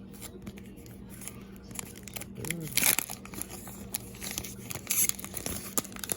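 Wrapper of a trading card pack being torn open and crinkled by hand: irregular crackling, with louder rips about three seconds in and again near five seconds.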